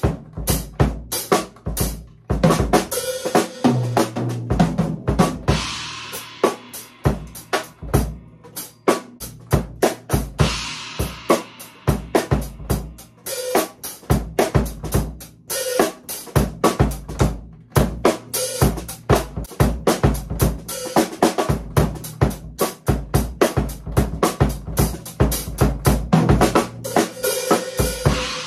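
Acoustic Premier drum kit played in a busy drum solo: snare and bass drum strokes several times a second, with spells of crashing cymbals now and then.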